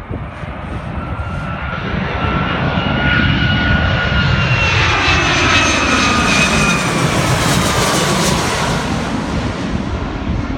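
Boeing 757 jet airliner passing low overhead on final approach with its gear down: the engines' rumble and whine grow louder, and the whine drops in pitch as the aircraft goes over, about halfway through.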